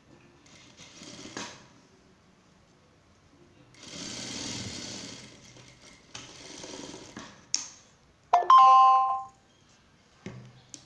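Industrial lockstitch sewing machine running in three short bursts of stitching. Then a click and a loud ringing two-note chime lasting about a second, followed by a soft thump near the end.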